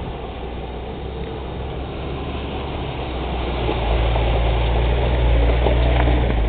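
Suzuki SUV engine running as the SUV drives through a shallow stony stream, with water splashing around the wheels. It grows louder over the last few seconds as the SUV comes up close.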